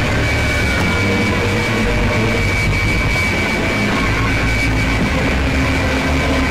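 Dense, loud experimental noise music: a thick wall of distorted sound with a steady high tone held throughout and a heavy low rumble beneath.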